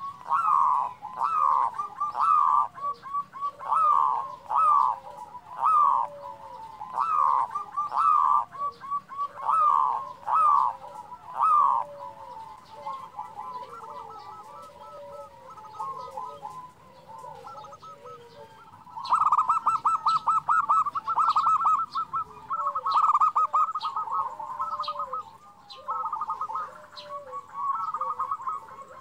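Zebra dove (perkutut) calling over and over in its rolling cooing phrases. The phrases soften for a stretch in the middle, then come back loud as quicker, tightly packed trilled notes.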